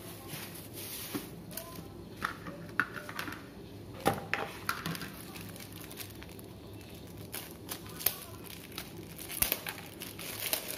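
Plastic wrapping crinkling as a packet of tempeh is handled and opened with a knife, with scattered sharp clicks and small knocks, the loudest about four, eight and nine and a half seconds in.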